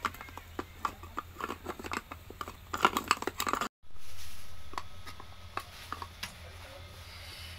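Sticky crackling and squelching clicks as Yupi gummy candy is forced through a clear plastic meat grinder and pulled out as paste, over a steady low hum. The sound drops out briefly a little past halfway, then comes back as a louder noisy swell that fades.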